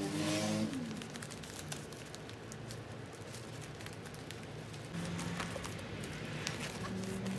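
Florist's wrapping paper rustling and crinkling with scattered light crackles as hands fold and handle it around a bouquet.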